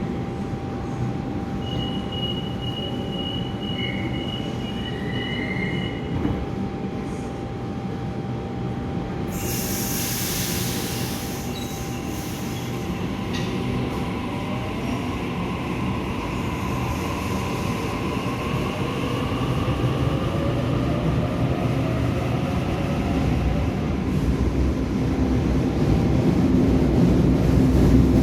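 Sydney Trains electric passenger train at a station platform: a steady rumble, with a high wheel squeal in the first few seconds and a sharp hiss of air about ten seconds in. After that a faint motor whine glides in pitch as the train grows louder toward the end.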